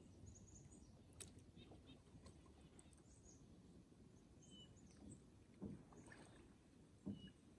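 Faint sounds of a kayak on a choppy lake: low, steady water sloshing against the hull, with a couple of soft splashes or knocks near the end.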